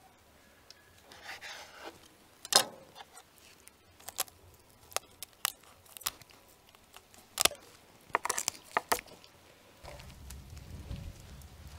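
Kitchen shears snipping through a salmon's fins: a series of sharp snips and clicks, some single, some in quick clusters. Near the end a low steady rumble sets in, from a wood fire burning in a brick dome oven.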